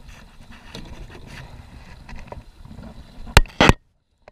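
Muffled handling noise on a plastic sit-on-top kayak, heard through a sealed waterproof camera housing, then two sharp knocks close together about three and a half seconds in, as of the paddle or a hand striking the hull; the sound then cuts out to dead silence.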